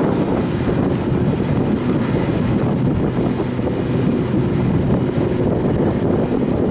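Wind buffeting the microphone, with a steady engine hum underneath.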